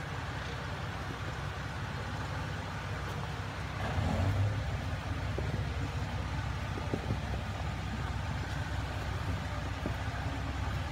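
Jeep Wrangler engine running at low speed as the Jeep crawls up a rutted, rocky dirt trail, a steady low rumble. The engine swells louder about four seconds in, and there are a few faint clicks.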